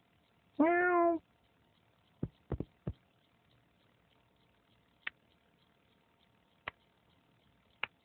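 A cartoon cat's single drawn-out meow, rising then falling in pitch, followed about a second later by four quick short knocks and then three isolated faint ticks spaced a second or more apart.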